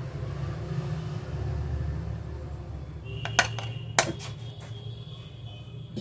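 A few sharp clicks and light taps of small hard objects being handled during a laptop hinge repair, over a low steady rumble.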